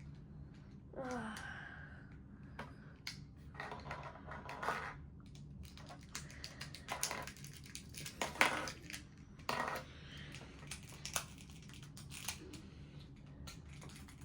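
Small plastic pieces of a 2x2 Rubik's cube clicking, snapping and scraping as they are handled and pressed back together, with the sharpest snap a little past halfway.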